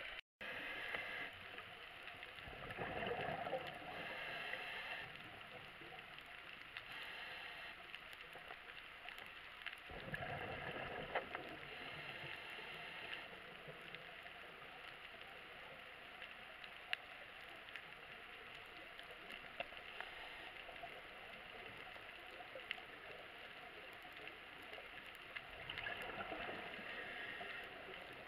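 Scuba diver's exhaled bubbles gurgling in three longer bursts several seconds apart, heard underwater over a steady hiss with faint scattered crackling.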